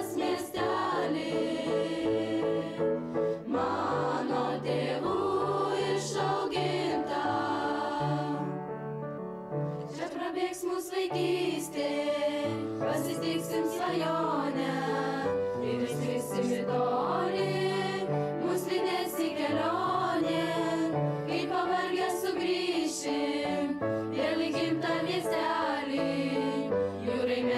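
Girls' choir singing a song, several voices together in sustained phrases, with a brief softer passage about a third of the way in.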